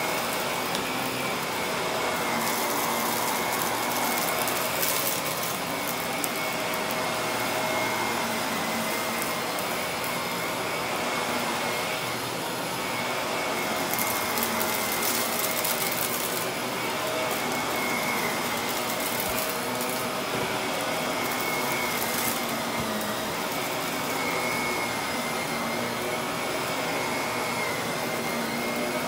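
A vacuum cleaner running steadily on carpet with a constant whine. A few times it gives a second or two of sharper hissing.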